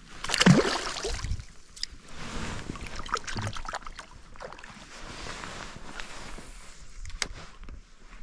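A chub let back into the river splashes at the boat's side about half a second in. Afterwards come soft water sounds and small knocks and rustles from the boat, with one sharp click near the end.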